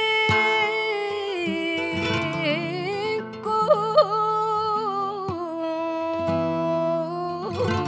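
Female flamenco singer (cantaora) singing long held, ornamented phrases, the pitch wavering through melismas. A short break comes about three seconds in before a second sustained phrase. A Spanish flamenco guitar plays quietly underneath.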